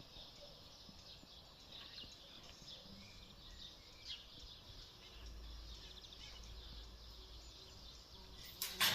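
Faint, scattered bird chirps over a quiet background hiss and low hum. Near the end a sudden, louder run of clicks and clatter begins.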